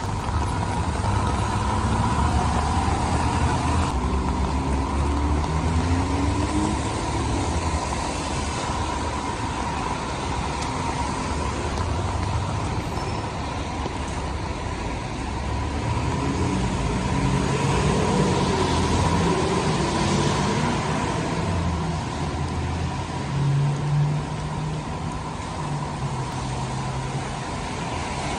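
Street traffic in the rain: motor vehicle engines pass, swelling and fading, over a steady hiss of rain and wet tyres, with a steady high hum under it. The engines are loudest near the start and again through the second half.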